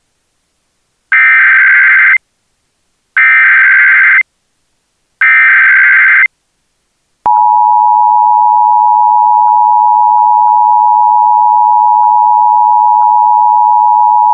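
Emergency Alert System SAME header: three one-second bursts of screeching digital data tones, then the steady two-tone EAS attention signal (853 and 960 Hz) starting about seven seconds in. Together they mark the start of an emergency alert broadcast, here an AMBER Alert.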